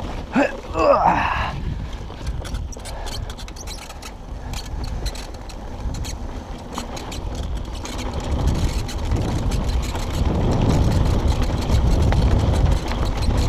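Mountain bike rolling fast down a rough, rocky gravel trail: tyres crunching over loose stones and the bike rattling over the bumps, with a steady low rumble that grows heavier from about eight seconds in.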